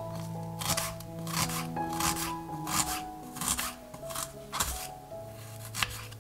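Small kitchen knife slicing a peeled onion on a wooden cutting board, a crisp cut and tap about twice a second, over background music.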